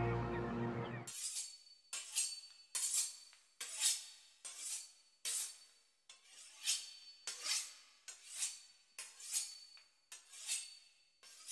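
A knife sawing back and forth through the pastry crust of a beef Wellington, a short scraping rasp with each stroke, roughly one to two strokes a second. Music fades out in the first second.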